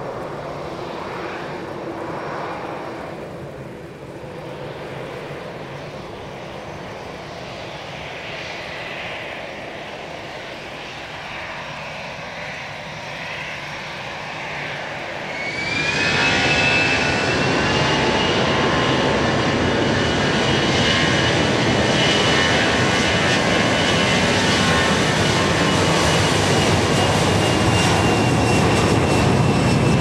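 Airliner engines: a fainter engine sound with shifting whines, then about halfway through a sudden rise to a loud, steady run, with a high whine that climbs briefly and then holds.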